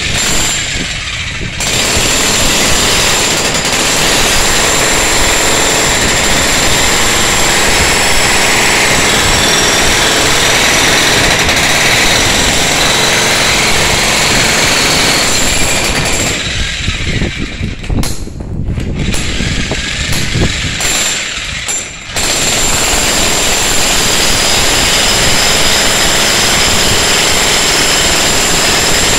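Ryu RDH 50 electric demolition hammer chiselling into a reinforced concrete floor: loud, rapid hammering with a high motor whine over it. It starts about a second and a half in, stops and restarts a few times past the middle, then runs steadily again.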